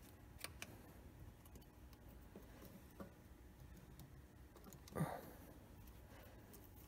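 Faint metal clicks and ticks of a screwdriver working the choke-cable clamp screws on SU carburetors, with one louder short knock about five seconds in.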